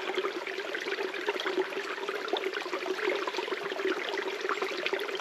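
Snowmelt water running steadily down a narrow, freshly dug drainage channel in the forest floor: a busy, even trickle full of small splashes.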